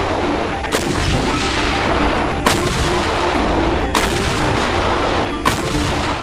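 Self-propelled howitzers firing: four heavy shots about a second and a half apart, each with a long rumbling echo.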